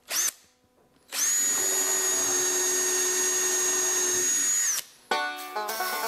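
A 20-volt cordless drill gives a short blip, then runs steadily for about three and a half seconds, boring a hole into a wooden post with an even whine. About five seconds in, banjo music starts.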